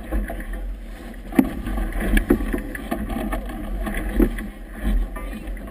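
Wind buffeting a boat-mounted GoPro's microphone over a steady low rumble, with choppy water slapping and splashing against the hull. Several sharp knocks come through, the loudest about a second and a half in.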